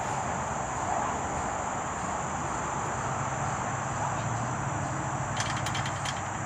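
Steady high-pitched drone of insects, running unbroken over a low outdoor background hum. A short run of rapid clicks or rattles comes about five and a half seconds in.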